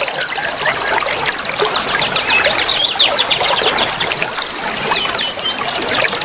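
Forest soundscape for bird therapy: running stream water under a dense chorus of many wild birds chirping, with a fast, high ticking trill that pauses and restarts.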